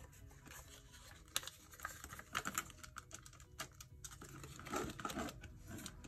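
Paper banknotes and the plastic pockets and pages of a small cash-envelope ring binder being handled: soft, irregular rustling and crinkling with small clicks, busiest about five seconds in.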